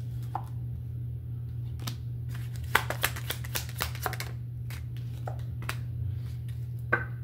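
A deck of oracle cards being shuffled by hand: irregular clusters of quick flicking clicks, densest a few seconds in. Cards are then laid down on the table one at a time, with a sharper click near the end, over a steady low hum.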